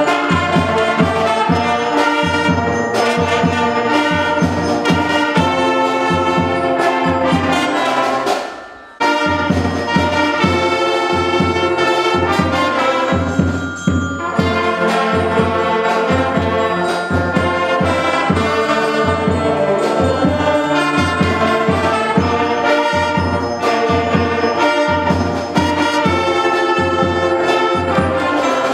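School wind band of saxophones, trombones and trumpets playing a tune over a steady beat. The music thins out and breaks off briefly about eight seconds in, then the full band comes back in together.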